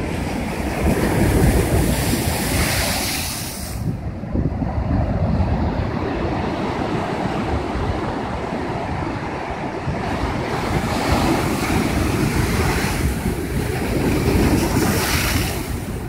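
Heavy ocean surf breaking against rock boulders, with wind noise on the microphone. The hiss of white water swells up twice, from about a second in and again from about eleven seconds in.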